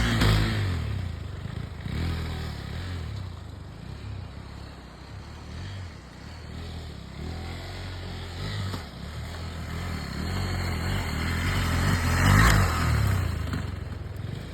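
KTM 390 Adventure's single-cylinder engine running while the motorcycle is ridden off-road, the revs rising and falling and loudest about twelve seconds in.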